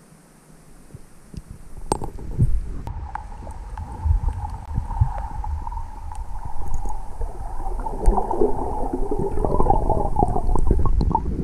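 Muffled underwater rumbling and gurgling of water moving around a submerged camera as a diver handles finds on a lake bed. It is quiet at first, builds from about a second in, carries a steady mid-pitched hum from about three seconds in, and grows busier and louder near the end.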